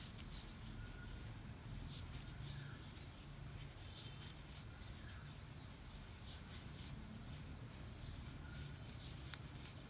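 Faint rustling and light scratching of a metal crochet hook drawing milk cotton yarn through single crochet stitches, over a low steady hum.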